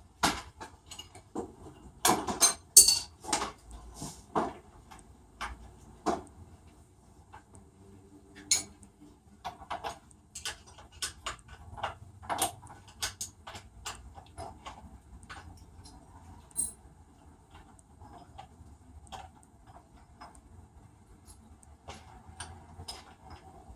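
Irregular metal clicks, clinks and knocks of hand tools and parts being worked on a lawn mower, loudest in a cluster about two to three seconds in.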